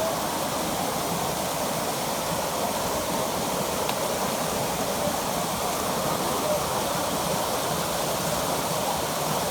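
Waterfall rushing steadily: a constant roar of falling water with no breaks.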